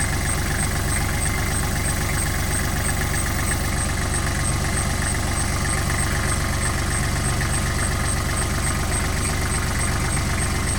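An engine idling steadily, with a fast even low pulse.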